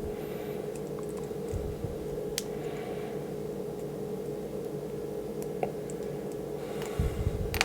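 Light plastic clicks and handling of small hard-plastic action-figure parts being worked apart by hand, a few isolated clicks with a small cluster near the end, over a steady low room hum.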